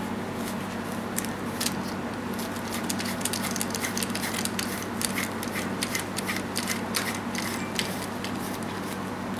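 Irregular light clicks and clinks of the RF handpiece's interchangeable tips being handled and swapped, over a steady low hum.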